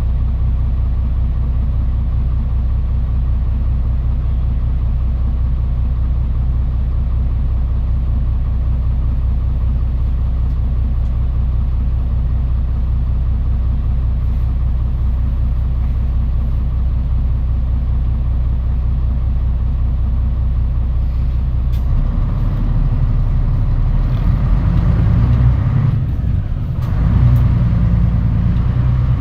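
Mitsubishi Fuso Aerostar city bus engine, heard from inside the cabin, running with a steady low drone. About 22 seconds in, the engine note rises under load, dips briefly near 26 seconds as the gear changes, then rises again.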